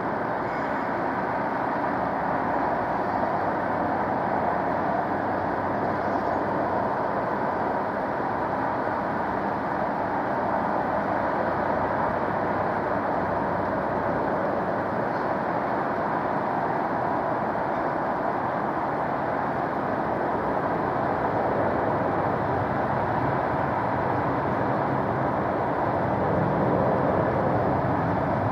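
Jet airliner engines running at an airport, a steady rushing noise that holds level throughout.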